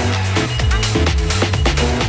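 Electronic house music from a DJ mix: a steady four-on-the-floor beat with a bass line and percussion hits.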